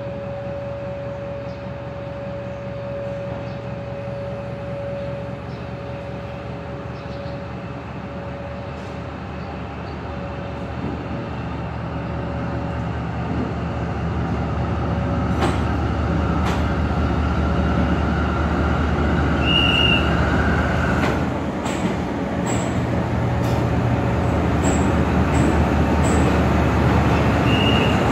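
D19E diesel-electric locomotive's engine running as the locomotive rolls slowly up to its train, growing steadily louder. Several sharp clanks come about halfway through, and two brief high squeals follow, one in the later part and one near the end.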